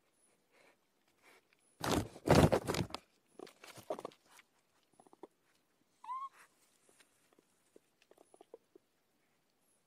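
Outdoor recording: a loud rustling crash about two seconds in, then scattered crackles and knocks, and about six seconds in a short whistle-like animal call that hooks upward in pitch. Faint high chirps recur about once a second.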